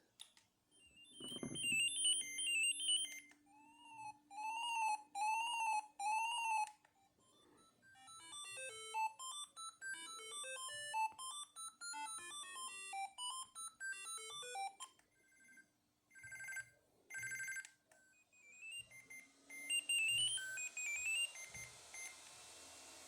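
Siemens AL21 phone playing its built-in ringtones one after another, each a short electronic beeping tune. First comes a run of four rising-and-falling chirps, then a longer melody, a few buzzing tones and a short closing jingle. There is a low knock about a second in.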